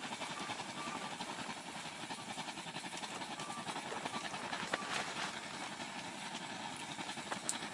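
Petrol blowtorch burning steadily inside a fishing tent as a heater, a constant rushing hiss. A few light clicks are heard about five seconds in and near the end.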